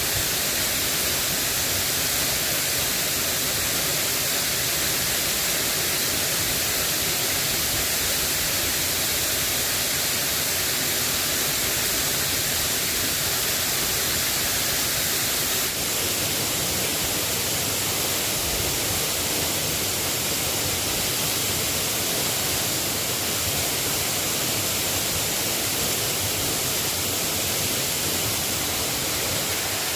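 Steady rain falling, an even hiss with no pauses, which shifts slightly in tone about halfway through.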